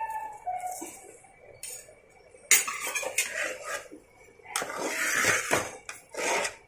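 Metal spoon knocking and scraping in a cooking pot of rice and water as it is stirred: a sharp knock about two and a half seconds in, then several scraping strokes.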